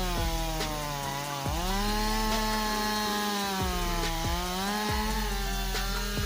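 Stihl MS261 50.2cc two-stroke chainsaw running at high revs while cutting through timber. The engine pitch sags as the chain bites and climbs back several times, most sharply about a second and a half in.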